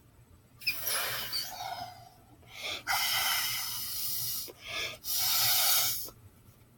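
Blowing air into a mass of slime to puff up a bubble: three long breathy blows and one short one, with short pauses between.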